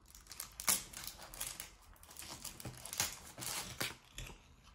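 A trading-card packet wrapper being torn open and crinkled by hand. It makes a run of short, irregular crackles and rustles.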